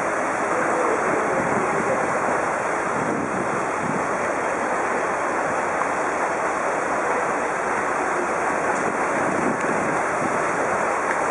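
Steady rushing noise of wind and moving floodwater, with no distinct events.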